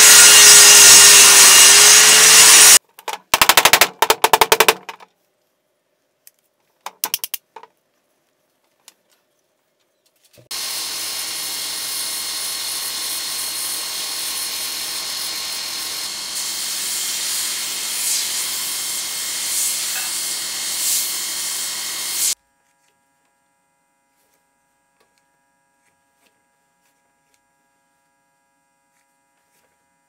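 Table saw cutting through a small piece of wood fed with a push stick, ending about three seconds in, followed by a couple of seconds of rapid clicking. From about ten seconds in, a belt grinder runs steadily for some twelve seconds as a workpiece is held against the belt. Then near silence with a faint hum.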